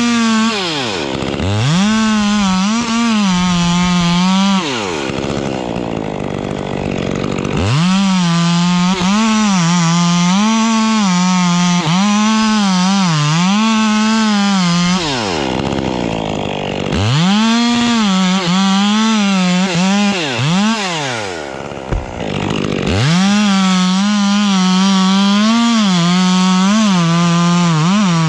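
Two-stroke chainsaw cutting pine wood at full throttle, its pitch wavering under the load of the cut. Between cuts it drops back to idle and revs up again, giving four cutting runs.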